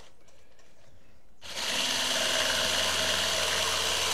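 Hamilton Beach immersion blender with its whisk attachment, quiet at first and then switched on about a second and a half in, running steadily as it whisks batter in a stainless steel bowl.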